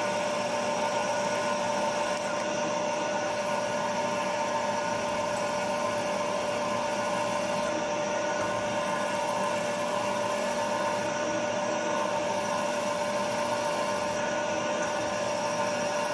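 Milling machine spindle running steadily while a 5/16-inch twist drill cuts a tap-drill hole through a metal slider: an even machine whine that holds the same pitch throughout.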